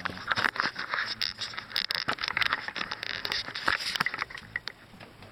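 Footsteps with scratchy, clicking handling noise from a handheld camera being carried while walking, easing off near the end.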